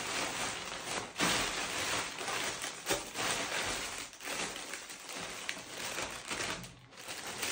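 Plastic mailer bag and clear plastic packaging rustling and crinkling as clothing items are pulled out and unwrapped by hand.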